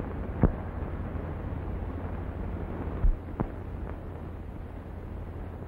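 Steady hiss and low hum of an old 1930s optical film soundtrack, broken by a few short clicks and pops.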